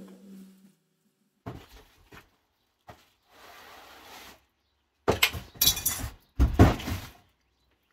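Cardboard box and plastic packaging rustling and scraping as a whole house fan's plastic ceiling grille is handled and lifted out, in several irregular bursts, the loudest near the end. A brief low hum sounds at the very start.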